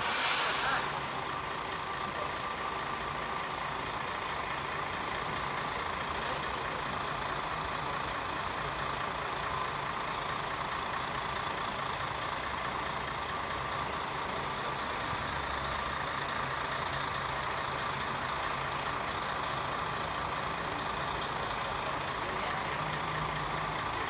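Single-decker bus standing at a stop with its engine idling, a steady running noise with a thin steady whine through it. Right at the start, a brief loud hiss of air from the bus's air brakes or door system.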